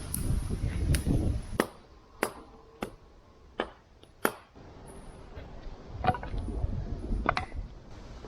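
A series of about eight sharp knocks, spaced irregularly over several seconds, over a low rumbling background.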